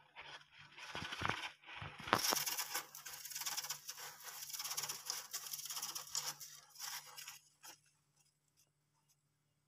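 Dwarf hamster scrabbling in wood-shaving bedding: a dense, rapid dry scratching and rustling close by, with a few dull bumps near the start, that stops about three-quarters of the way through.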